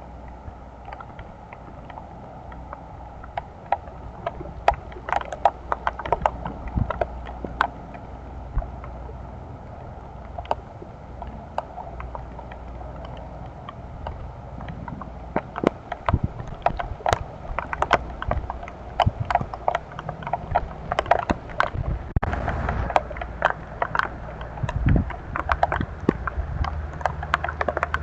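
Hailstones striking hard surfaces in irregular sharp clicks and knocks over the steady noise of the storm, the hits coming thicker and louder about halfway through.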